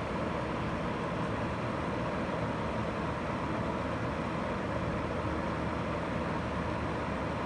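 Steady background hum and hiss, even throughout, with no distinct clicks or knocks.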